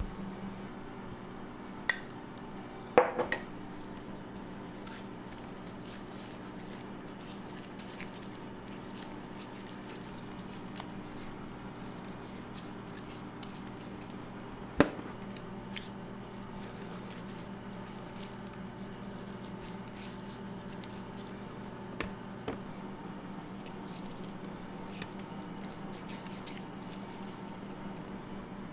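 Raw beef ribs being rubbed by hand with whole-grain mustard on a stainless steel tray: soft squishing of the meat, with a few sharp clinks and knocks, the loudest about three seconds in and again halfway through. A steady kitchen hum runs underneath.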